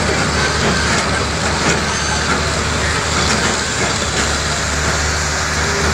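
A heavy vehicle's diesel engine running steadily, a low, even hum under a loud rushing noise.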